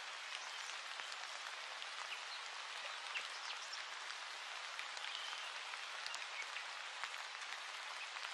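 Steady rain sound: an even hiss with faint scattered ticks and drips.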